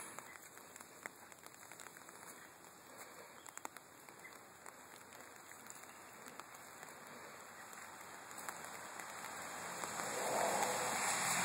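Steady rain pattering, with scattered ticks of drops. Near the end a louder rushing hiss builds up.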